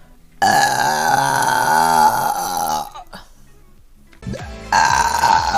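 A woman's long, massive burp on command, pitched and wavering, lasting about two and a half seconds from about half a second in. A second loud sound starts near the end.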